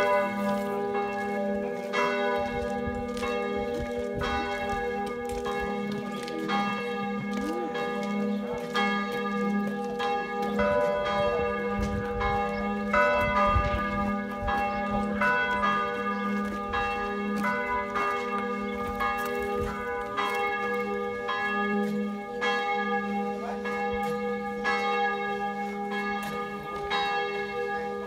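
Church bells ringing, with fresh strokes about once a second over a sustained ringing hum.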